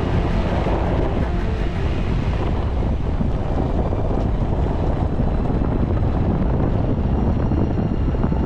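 Steady low rumble of a vehicle driving on a gravel logging road, with wind buffeting the microphone.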